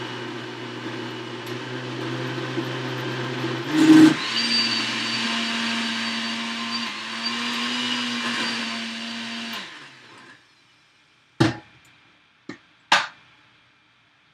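Countertop blender puréeing carrot ginger soup. The motor runs steadily, and about four seconds in a knock comes as its pitch changes to a higher, steady whine. The motor cuts off about ten seconds in and spins down, followed by three sharp knocks.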